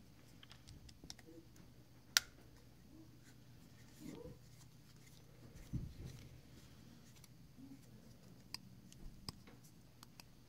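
Faint small clicks and light handling noises of a screwdriver bit and small knife parts as a screw is backed out of a Spyderco Positron's handle scale with a bit driver. One sharp click comes about two seconds in, and a couple of soft thumps follow.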